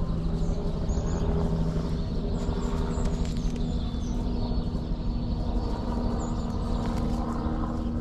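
A motor engine running steadily, a low, even hum that shifts slightly in pitch about a second in, with faint high chirps of small songbirds scattered over it.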